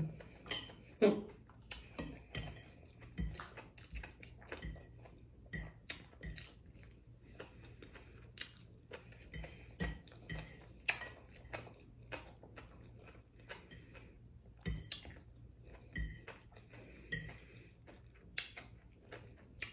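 A fork clinking and scraping against a plate of fried fish and coleslaw in irregular, scattered taps, with close-up chewing between them.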